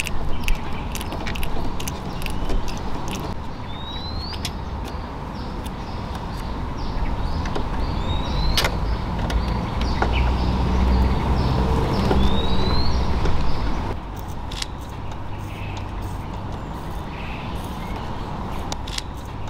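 Low rumble of a motor vehicle running, swelling for a few seconds before easing off, with a short rising squeak every few seconds and scattered light clicks.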